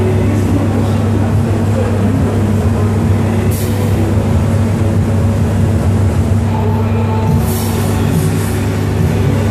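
A steady, loud low hum, with two short hissing sounds about three and a half and seven and a half seconds in.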